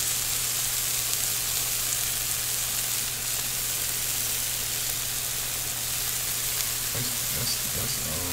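Shredded cheese sizzling on a hot steak stone cooking block: a steady frying hiss, with a low steady hum underneath.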